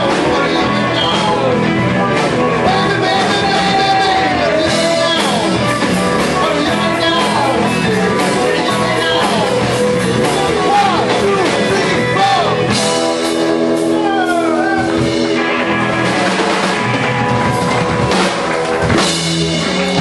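Live rock band playing: electric guitars and a drum kit with two singers, the voices sliding up and down over the band. Past the middle the band holds one steady chord for a couple of seconds before going on.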